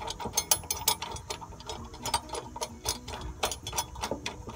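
Socket ratchet clicking in quick, uneven runs of strokes as a running-board bracket bolt is turned into the truck's frame.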